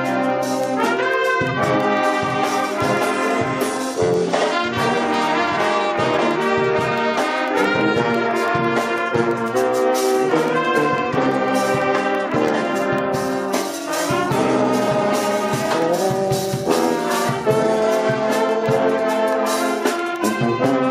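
A school band playing an ensemble piece led by brass, with trumpets and trombones to the fore and saxophones, at a steady beat.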